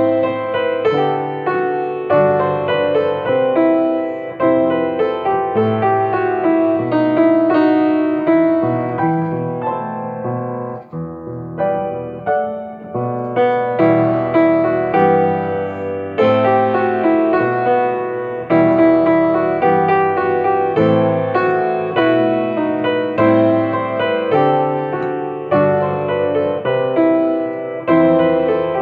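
Piano playing a hymn tune, chords and melody notes struck and left to ring, with a brief lull about eleven seconds in.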